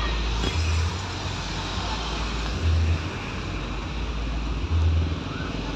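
Street din with a deep bass thud repeating about every two seconds, from a truck-mounted loudspeaker stack, over a steady low hum.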